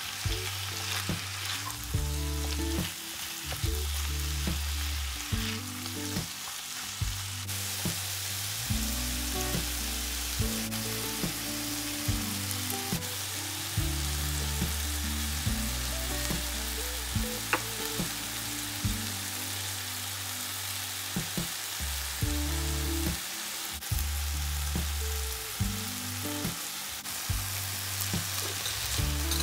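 Diced chicken breast and mushrooms sizzling as they fry in a pan, with a silicone spatula stirring and scraping against the pan in many short clicks.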